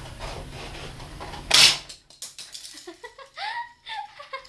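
A utility knife slitting the plastic and cardboard of a toy-car blister pack, one short loud rasp about one and a half seconds in. Near the end, a child giggles in short bursts with rising pitch.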